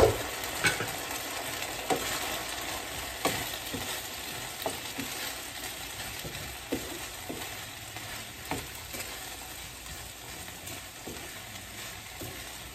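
Chicken strips, shredded carrots and onions sizzling in a frying pan as they are stir-fried with a wooden spatula, which knocks and scrapes against the pan about once a second. The sizzle eases slightly toward the end.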